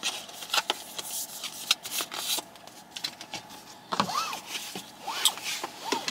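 Clicks and rustles of things being handled inside a car, with two short squeaks that rise and fall in pitch, one about four seconds in and one near the end.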